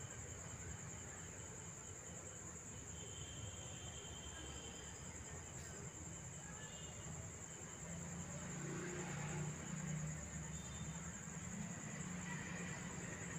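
Crickets chirring in a steady, unbroken high-pitched night chorus, with a low background rumble that swells about two-thirds of the way in.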